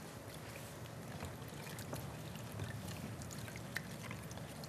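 Quiet background noise with a few faint, light ticks of a spoon stirring a milk-and-starch mixture in a stainless saucepan.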